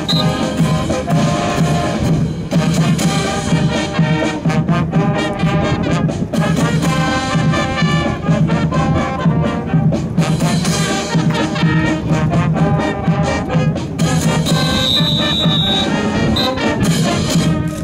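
Brass-band music with a steady beat, playing loudly throughout. A brief steady high tone sounds about 15 seconds in.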